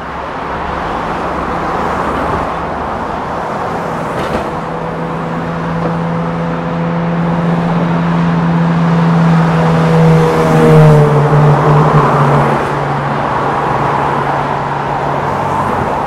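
Road traffic on a busy multi-lane road: the steady rush of tyres and engines of passing cars. One vehicle's engine hum grows louder and drops in pitch as it passes, about ten to eleven seconds in.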